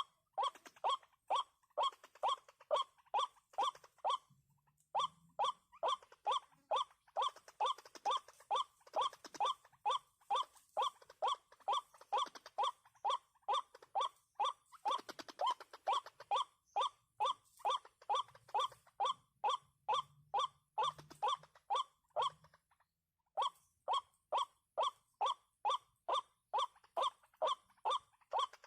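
White-breasted waterhen's monotonous 'kruak' call repeated over and over, about two or three calls a second. The calls stop briefly about four seconds in and again for about a second near the end.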